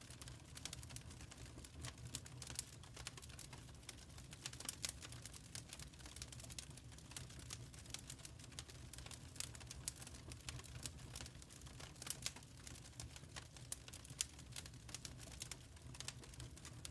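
Wood fire in a fireplace crackling: irregular sharp pops and snaps over a low steady rumble.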